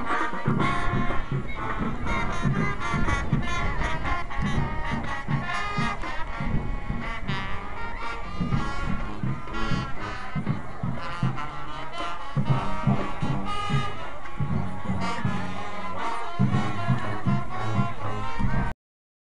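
Marching band playing, with brass and a heavy drum beat. It cuts off abruptly near the end.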